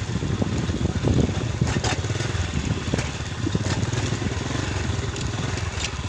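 Motorcycle engine running as the bike rolls down a rough dirt footpath, with a few sharp clattering knocks from bumps in the track.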